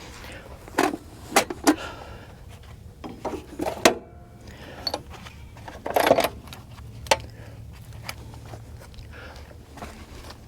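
Scattered clicks, knocks and rattles of small metal hitch parts being handled, the sharpest knock about four seconds in.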